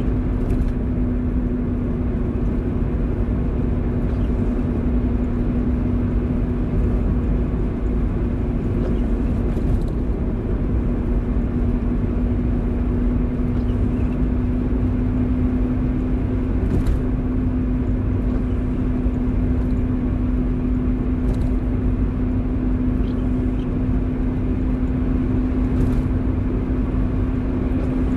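Car driving in the rain: a steady road and engine rumble with a steady low hum, and a few faint ticks now and then.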